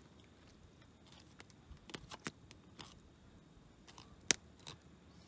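A not-very-sharp knife filleting a small channel catfish on a plastic cooler lid: scattered soft crunches and clicks as the blade works through the fish, with one sharp click about four seconds in.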